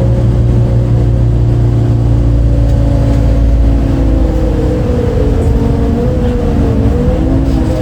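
MAN D0836 diesel engine of a 2008 MAN Lion's City A37 articulated bus, heard from inside the bus while driving, with a steady drone over a heavy low rumble. The pitch sags gently in the second half and shifts near the end. This bus had an engine note that was unusual for an MAN.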